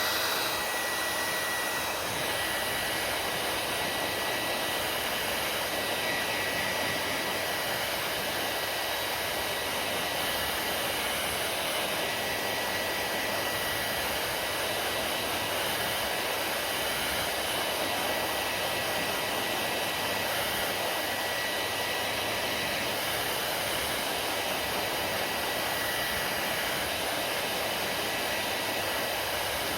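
Hair dryer running steadily: a constant rush of blown air with a thin, steady high whine.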